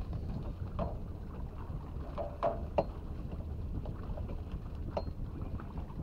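Steady low rumble aboard a small motorboat, with a few light knocks and clicks, the sharpest a little under three seconds in.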